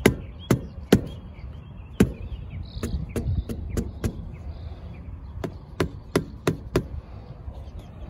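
A cylindrical air filter from a zero-turn mower knocked repeatedly against the mower to shake the dirt out of it: about a dozen sharp knocks in uneven groups, with a pause about halfway.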